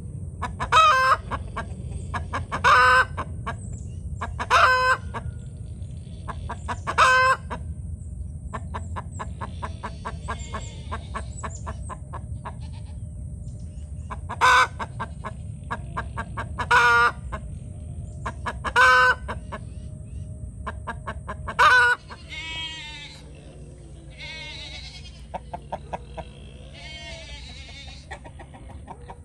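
Chickens, a rooster among hens, calling and clucking: loud short calls come in two groups of four, about two seconds apart, with quick runs of clucks between them. Near the end, quieter, softer clucking follows.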